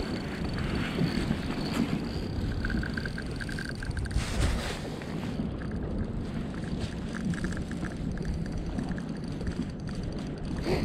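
Wind buffeting the microphone over a steady wash of small waves lapping against a kayak on open water.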